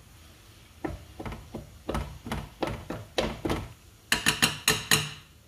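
A chopstick poking steam holes into sticky rice in an aluminium steamer pot: a string of dull knocks, then a quick run of about seven sharper, ringing taps against the metal pot near the end.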